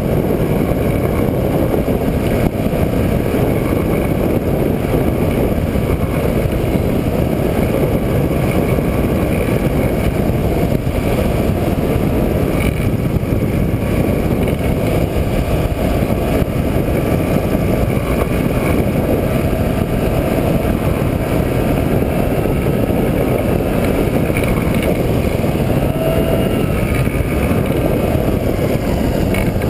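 Rotax 503 two-cylinder two-stroke engine of an ultralight trike running steadily, mixed with heavy wind noise on the microphone, as the trike comes in to land on the runway. Near the end a pitched engine tone falls as the trike touches down.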